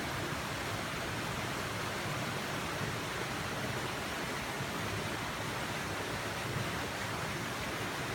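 Steady rushing noise, even throughout, with no distinct sounds standing out.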